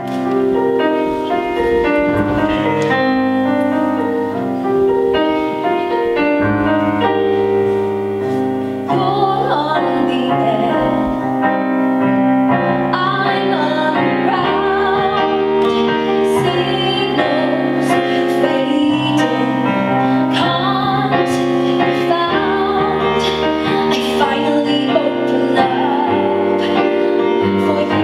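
Solo piano plays a slow introduction, then about nine seconds in a woman's solo voice enters, singing a musical-theatre song with vibrato over the piano accompaniment.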